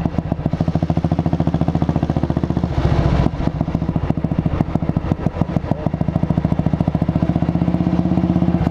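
Junak M10's 350 cc single-cylinder four-stroke engine running under way, heard from the saddle, with an even, fast beat of firing pulses. About three seconds in it briefly gets louder for a moment, then settles back.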